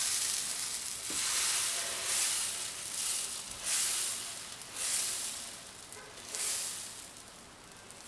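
Moong dal and spinach batter sizzling on a hot, oiled tawa as it is ladled on and spread in circles with a steel ladle. The hiss swells and eases about once a second and fades toward the end.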